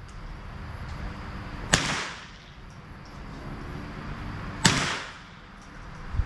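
Two gunshots about three seconds apart, each a sharp crack that rings on and fades over about half a second.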